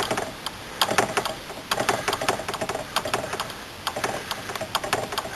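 Irregular small metallic clicks and light knocks from a motorhome door hinge being worked apart by hand. The part is coming out easily, with no hammer needed.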